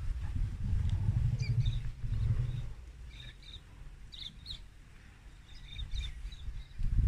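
Small birds chirping in short scattered calls over a low rumbling noise that dies down about three seconds in and rises again near the end.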